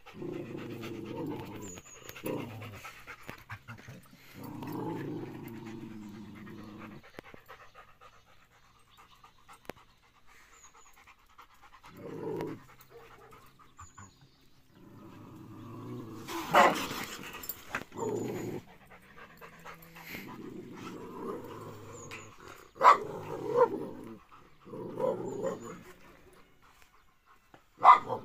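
Growling in a standoff between a ginger cat and two dogs, a German Shepherd and a white dog: long, low growls come and go every few seconds. Three sudden loud outbursts break in during the second half.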